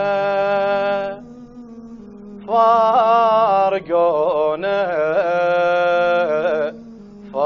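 A slow Arabic lament sung in long, drawn-out notes with wavering pitch over a steady low hum. The voice breaks off about a second in, returns a second and a half later, and pauses again near the end.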